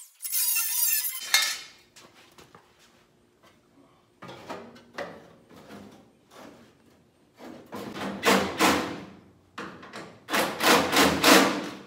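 A cordless angle grinder whines as it cuts a rusty steel fender, stopping about a second in. Then sheet metal clanks and rattles repeatedly as the fender is handled and fitted onto the Jeep's body, the loudest clatters near the end.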